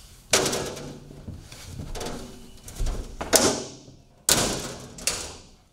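Trailer cabinet door being shut and latched: a few sharp knocks and clicks with a short ring after each, the strongest about a third of a second in, then another at about three and a half seconds and a last one just after four seconds.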